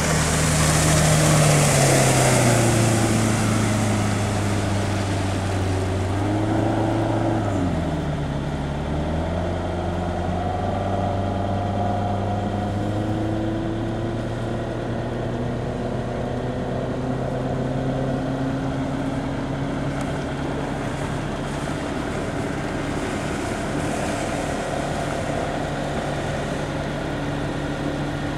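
Bayliner runabout's engine running at speed as the boat passes close, with a hiss of water off the hull. The engine note falls as it goes by, dips and picks back up a few seconds later, then holds steady as the boat moves off.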